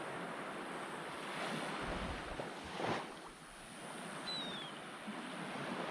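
Ocean surf washing on the beach, swelling to a peak just before three seconds in, easing, then building again, with wind on the microphone. A short high whistle falling slightly in pitch sounds a little after four seconds in.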